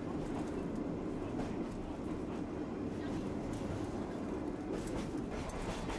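Sagano scenic trolley train running along the track, a steady rumble of wheels and carriage heard from aboard, with a few clicks near the end.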